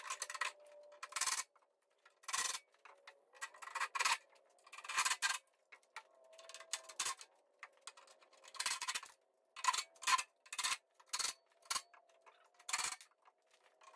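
Short, irregular bursts from a cordless drill/driver driving the bolts of a steel welding cart, mixed with clicks of the metal cart parts being handled.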